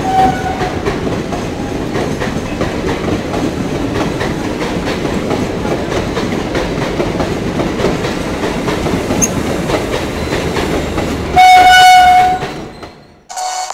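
ICF passenger coaches rolling past on the rails, a steady rumble with the clack of wheels over rail joints. A train horn gives a short blast right at the start and a loud blast of about a second some eleven seconds in, and then the sound fades out near the end.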